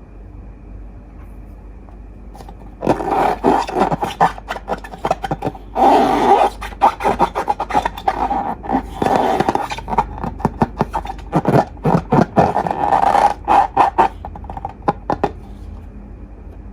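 Slime being squished and worked by hand, with sticky crackling and clicking in dense bursts. It starts about three seconds in and stops about two seconds before the end.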